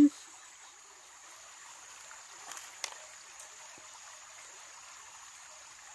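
Faint, steady trickle of a small stream, with a steady high insect chirr over it.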